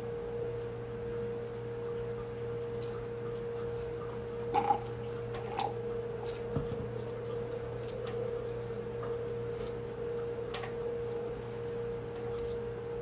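A few light clinks of ice and a metal straw against a drinking glass as the drink is stirred, the loudest a double clink about four and a half seconds in, over a steady hum.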